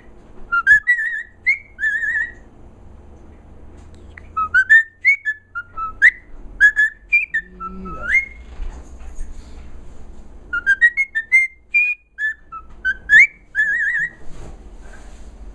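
A pet bird whistling: three bursts of quick whistled notes, many sliding sharply upward, with short pauses between them.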